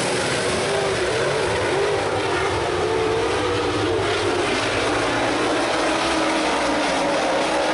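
A field of super late model dirt racecars' V8 engines running together, their overlapping engine notes rising and falling in pitch.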